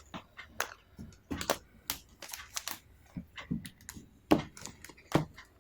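Irregular light clicks and taps, several a second, from a tablet and its plastic packaging being handled, with two louder knocks near the end.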